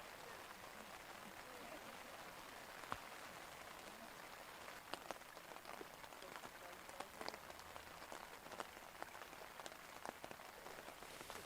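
Torrential rain falling as a steady hiss, with sharp individual drop ticks close to the microphone that grow more frequent in the second half.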